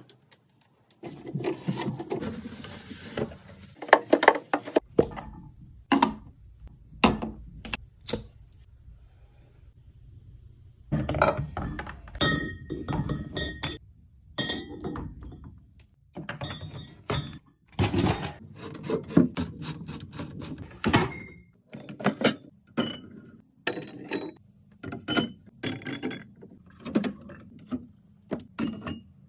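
Drinks and snack packages being handled and set down while a fridge is restocked: a steady run of thunks, clicks and light clinks in short bursts, with a few brief ringing clinks.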